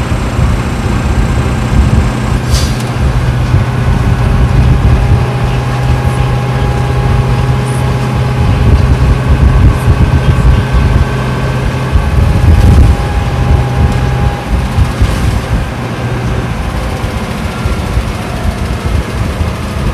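Isuzu Cubic KC-LV380N bus's V8 engine with the exhaust brake engaged on a continuing downhill, a loud steady low drone heard from inside the cabin. The drone breaks off briefly about twelve seconds in and then comes back.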